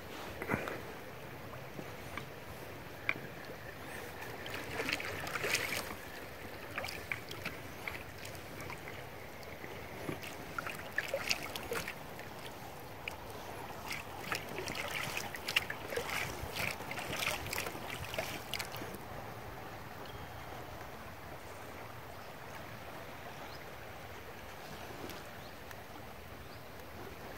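River water lapping and splashing against the hull of a small boat drifting with the current. There are many small slaps and trickles for the first two-thirds, then a smoother, steady wash.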